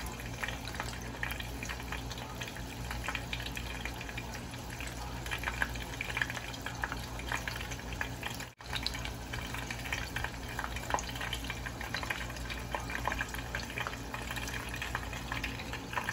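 Lumpiang shanghai, meat-filled spring rolls, deep-frying in hot oil in a small saucepan: a steady, dense sizzle and crackle of bubbling oil, with a split-second break about halfway through.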